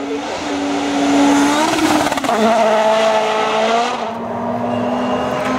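World Rally Car's 1.6-litre turbocharged four-cylinder engine at full throttle. The engine note climbs, drops sharply with a gear change a couple of seconds in, then holds at high revs.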